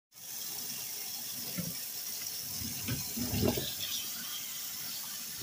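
Kitchen tap running steadily into a stainless steel sink as raw shrimp are rinsed under it by hand, with a few soft knocks from the shrimp being handled.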